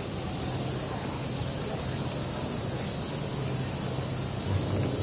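Cicadas buzzing in a steady, unbroken high-pitched chorus, with a faint low hum underneath.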